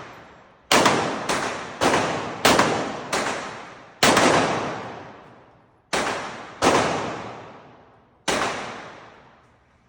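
Gunshots from a semi-automatic firearm at a shooting range, about nine shots at an uneven pace, some close together and some a second or two apart, each followed by a long echoing tail.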